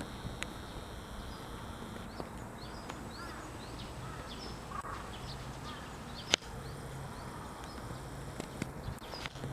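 Outdoor morning ambience of small birds chirping again and again, over a steady high-pitched buzz and a faint low hum, with one sharp click about six seconds in.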